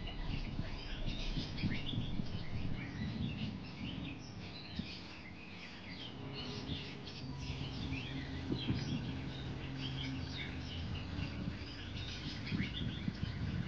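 Many small birds chirping and twittering in a busy outdoor chorus, quick short calls overlapping throughout, over a low background hum.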